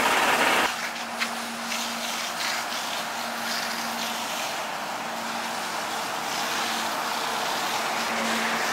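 Fire hose spraying water onto a burning truck: a steady hiss over the steady hum of an engine running. A louder hiss cuts off sharply under a second in, and a few sharp cracks follow over the next couple of seconds.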